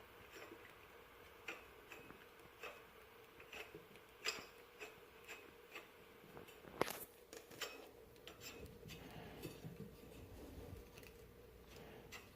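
Faint, irregular metallic clicks and light taps as the hub nut is threaded on by hand onto a full-floating axle hub, with one sharper click about seven seconds in.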